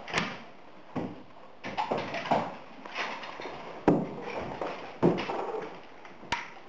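Scattered light taps and knocks, with a sharp click about four seconds in and another near the end.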